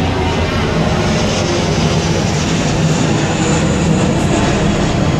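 Steady, loud street din dominated by motor traffic noise.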